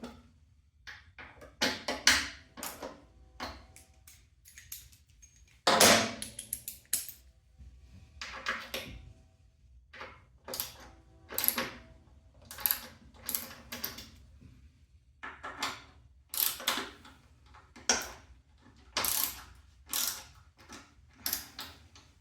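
Steel parts of a motorcycle lift's wheel vise clanking and clicking in an irregular run of knocks as the vise is fitted and bolted in place, some strikes ringing briefly. The loudest clank comes about six seconds in.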